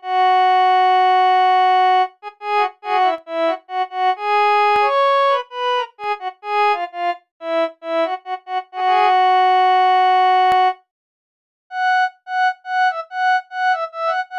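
Virtual harmonium from a phone app playing a Hindi song melody one note at a time, with reedy keyboard tones. Two notes are held long, and there is a short pause about three quarters of the way through.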